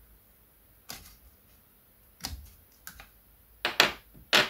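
Several sharp clicks and knocks as AA batteries are worked out of the radiosonde's plastic battery holder and set down on the work mat, the loudest a quick pair and a final knock near the end.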